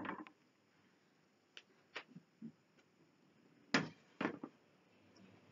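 Scattered knocks and clicks of a wooden-framed chalkboard being handled and turned over on its easel, the two loudest about four seconds in.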